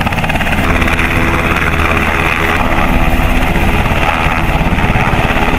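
Black Hawk-type military helicopter hovering: steady rotor and engine noise with a rapid, even beat of the blades.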